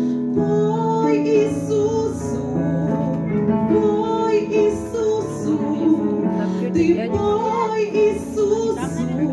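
A woman singing a slow Christian song through a microphone over instrumental backing music.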